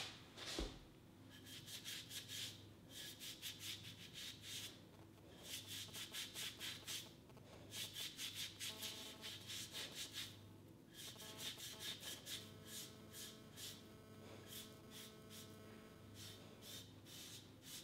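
A damp sponge and fingertips rubbed over the unglazed foot of a ceramic teapot, in several runs of quick back-and-forth strokes, with a faint squeak in places.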